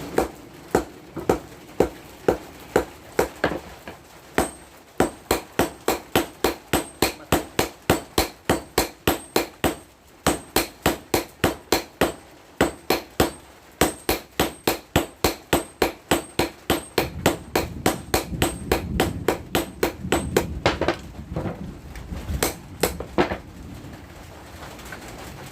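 Hammer blows on the steel of a chopper-tractor blade being shaped into a machete: sharp ringing strikes, about two to three a second, in runs with brief pauses. The blows thin out near the end.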